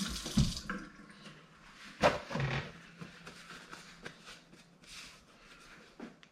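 Kitchen tap running while hands are rinsed, shut off under a second in; then a sharp knock about two seconds in and faint handling noises.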